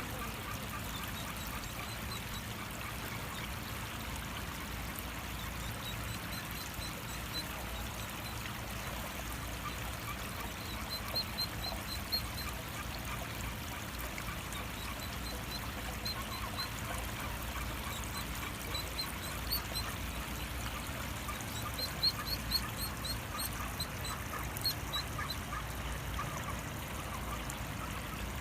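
Ducklings peeping in quick runs of short high chirps over the steady rush of running water from a small waterfall.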